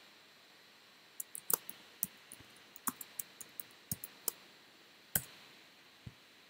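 Computer keyboard typing: a quick, irregular run of key clicks for about three seconds, then a single louder keystroke about five seconds in and a faint click near the end.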